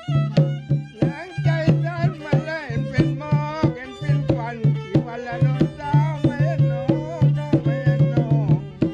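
Rong ngeng folk music: a violin plays a melody with wavering, gliding pitch over a steady beat of hand drums.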